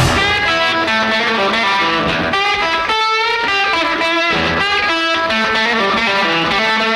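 Rock music: an electric guitar, slightly distorted, playing a run of single held notes, with no singing.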